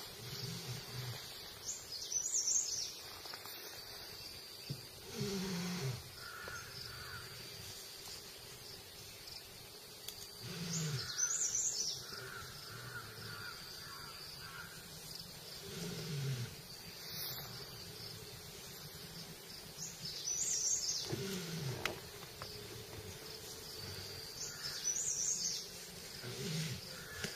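Tiger growling in low calls that fall in pitch, repeated about every five seconds, with birds and insects calling in the background.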